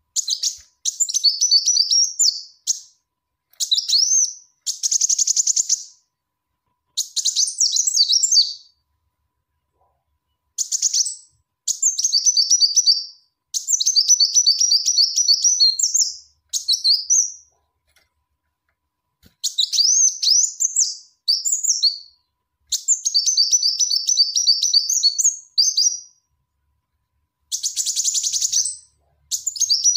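Female kolibri wulung sunbird calling: repeated phrases of rapid, very high, thin chirps and trills, each a second or two long, broken by short silent gaps. This is the call a female gives to summon a male.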